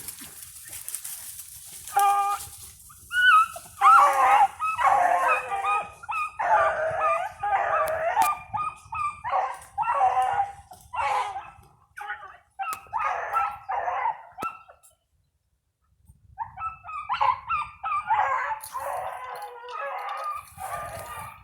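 Dog barking and yelping in a long run of short, pitched calls, stopping for about two seconds past the middle, then starting again.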